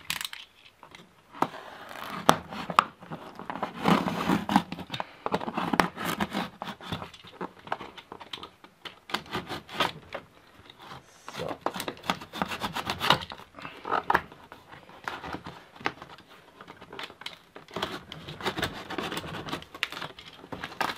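A box cutter slitting packing tape on a cardboard carton, with the tape peeled and torn away: irregular scraping, ripping and crackling of tape and cardboard, with many sharp clicks.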